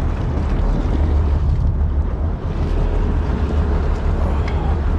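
Steady low rumble aboard a fishing boat, with no distinct knocks or calls standing out.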